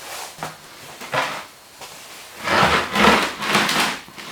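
Workshop handling noise: a few light knocks, then a loud stretch of scraping and rummaging among tools and parts for about a second and a half near the end.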